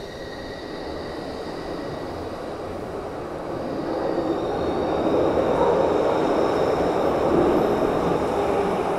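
New Stadler-built Glasgow Subway train pulling out of the platform into the tunnel. Its rolling rumble grows steadily louder as it gathers speed, with a faint high whine that rises in pitch.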